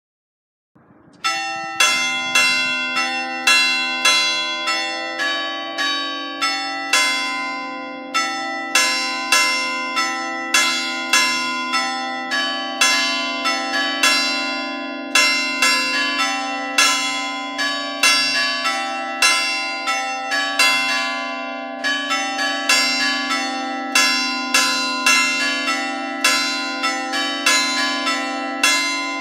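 Peal of church bells, a set of three in C cast by Giovanni Battista Mazzola in 1845 and swung electrically in the Ambrosian style. The bells start about a second in and strike over and over, roughly once or twice a second, each stroke ringing on into the next.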